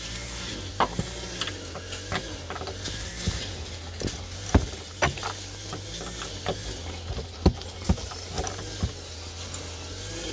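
Irregular clicks and light knocks of hand work on the metal inner panel of a car door, over a steady low hum.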